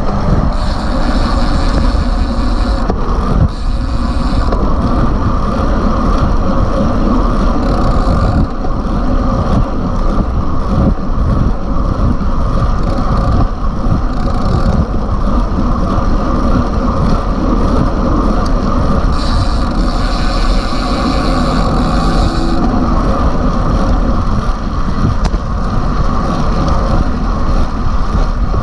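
Wind buffeting the microphone of a bike-mounted camera on a road bike riding at about 39 km/h: a loud, steady rumble with a brighter hiss that comes and goes a few times.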